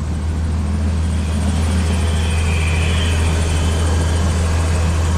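2004 GMC Savana van's engine idling with a steady low drone, running again now that its crank-no-start fault, code P0335 (crankshaft position sensor circuit), has been repaired.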